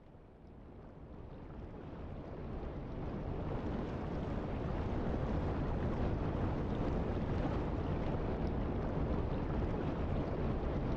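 Steady low rushing noise with no distinct tones, fading in from silence over the first three seconds and then holding level.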